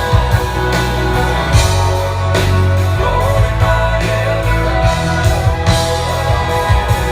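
Live country band playing amplified at a sound check, with drums keeping a steady beat under bass and guitar.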